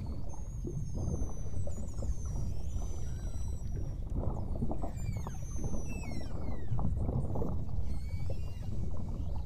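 Beluga whales whistling and chirping: many short falling whistles and a few longer held tones, overlapping, over a steady low rush of water noise.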